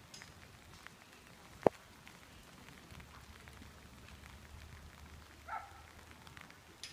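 Light rain falling, heard as a faint hiss with scattered drop ticks. A single sharp, loud tap comes about one and a half seconds in, and a brief animal call about five and a half seconds in.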